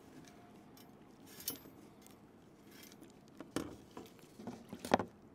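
Light clicks, taps and rattles from handling an improvised bow saw, its tensioning cord being worked loose and its steel blade knocking against the wooden frame and table. The clicks are scattered, bunch up in the last two seconds, and the sharpest comes near the end.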